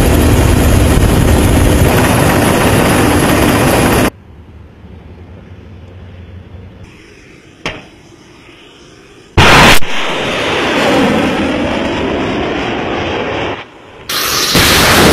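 Cut-together sounds of military hardware. Loud rushing engine-and-wind noise gives way to a quieter stretch with a single sharp crack. About nine and a half seconds in comes a very loud short blast, followed by long rushing noise, and loud noise returns near the end.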